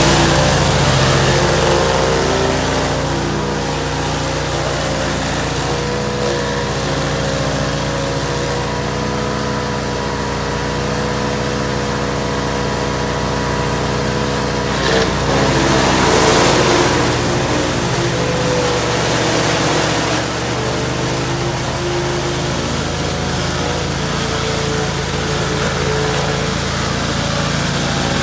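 Gas chainsaw engine running steadily, with a brief louder, rougher stretch about halfway through.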